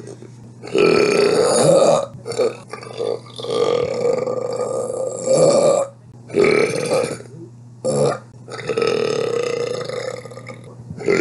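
A woman belching loudly, again and again: a string of about six separate burps, some short and some long and drawn out.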